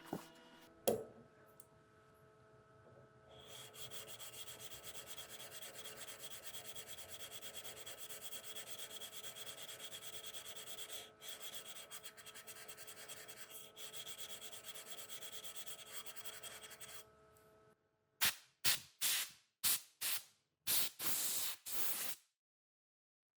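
Hand tool working a piece of wood: a rapid, steady scraping run for about thirteen seconds, then about seven separate strokes near the end. A single knock comes about a second in.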